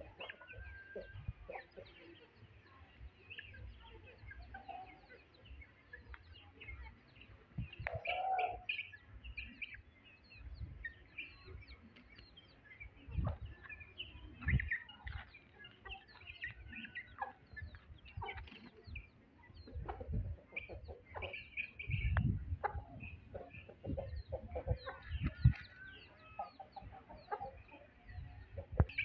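Chickens clucking and chirping in short scattered calls, with occasional low thumps and knocks, one sharper knock late on.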